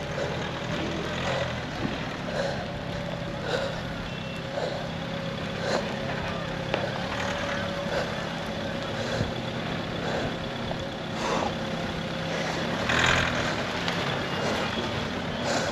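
Mahindra Thar 4x4 engine running at low speed as it crawls over rough, rocky ground, with a short beep repeating about once a second.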